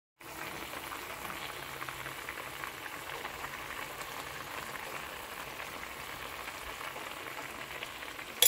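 Sponge gourd, squid and noodles bubbling and sizzling in a pan of simmering broth, a steady fine crackle. A single sharp knock comes right at the end.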